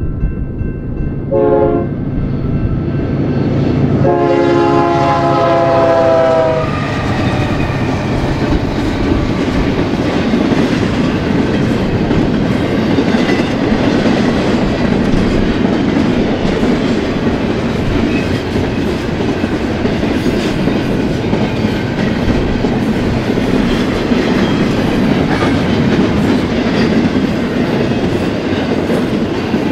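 Union Pacific freight locomotive's horn sounding a short blast, then a longer one about 4 s in, at a grade crossing. The double-stack intermodal train's cars then roll past close by with a steady rumble and wheels clicking over rail joints.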